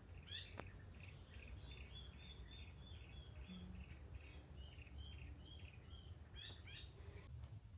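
Faint birdsong: a run of short, evenly repeated high notes lasting about five seconds, with quick falling notes at the start and again near the end, over a low steady rumble.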